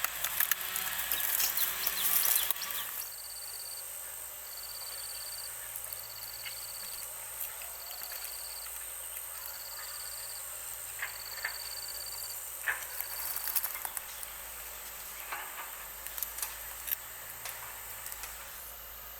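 Forest ambience. A loud rustling noise fills the first three seconds, then a high-pitched call repeats about once a second, seven times, over a thin, steady, very high insect drone, with scattered light clicks and rustles.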